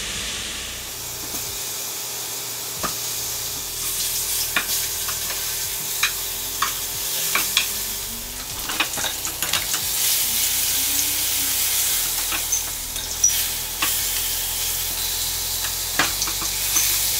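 Beef short ribs sizzling steadily as they sear in hot oil in a frying pan, with scattered clicks and knocks as tongs turn the ribs against the pan.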